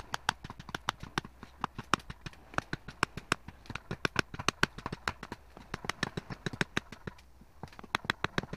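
A quick, uneven run of sharp clicks and knocks, about six to eight a second, with a short lull near the end.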